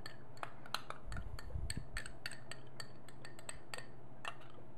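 A spoon clicking and scraping irregularly against a small glass bowl as sour cream is spooned in and worked into it, with a few dull knocks a little after a second in. A steady low hum runs underneath.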